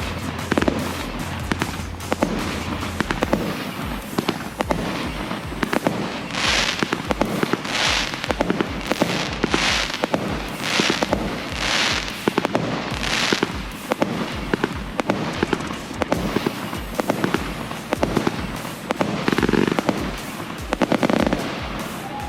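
Backyard fireworks going off: a steady stream of sharp bangs and crackles, with a run of about seven hissing whooshes about a second apart in the middle.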